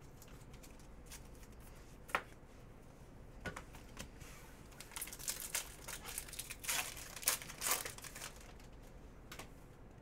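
Foil wrapper of an Upper Deck Artifacts hockey card pack crinkling and tearing as it is ripped open by hand, a run of rustles through the middle few seconds. A couple of sharp clicks come before it, the loudest about two seconds in.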